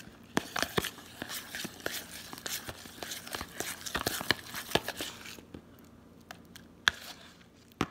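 A metal spoon stirring a wet slime mixture in a thin plastic bowl: busy scraping and crinkling with many sharp clicks of spoon against plastic. It eases off about five seconds in, leaving a couple of single clicks.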